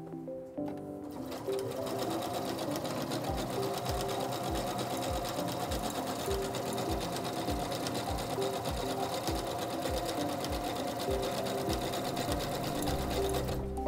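SINGER C430 computerized sewing machine starting up about a second and a half in, then running steadily at speed as it sews a dense decorative scallop stitch, stretched out with elongation set to ×3.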